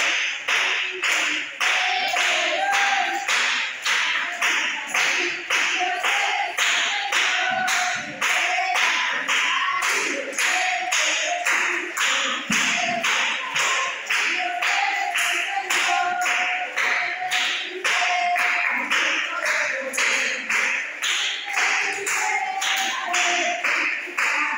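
Congregation clapping hands in a steady beat, about two claps a second, with voices singing a praise chorus over it.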